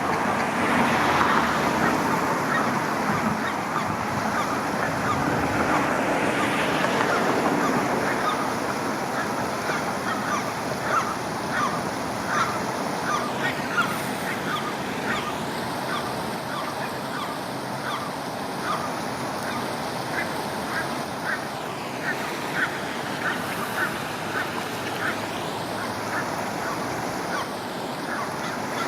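Geese honking, a run of short calls repeated several times a second that starts some seconds in and thins out near the end, over a steady rush of flowing water.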